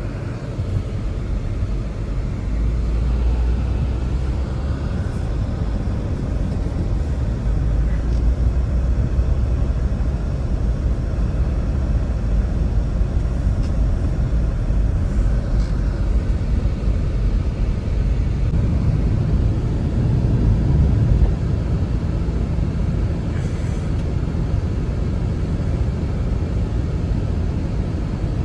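Strong blizzard wind: a steady low rumble of wind noise that swells in a gust about twenty seconds in.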